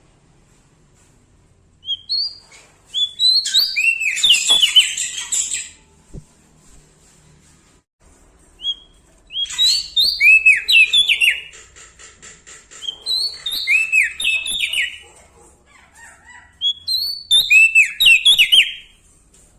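Prenjak daun songbird singing loudly in three bouts of fast, repeated downslurred whistled notes, with short pauses between the bouts.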